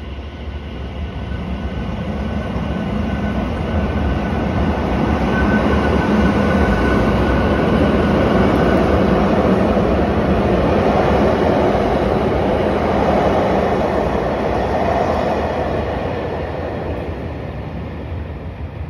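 Limited express train pulling out and passing close by: its rumble and wheel noise swell to a peak around the middle and then fade as it draws away. A faint steady whine runs through the first half.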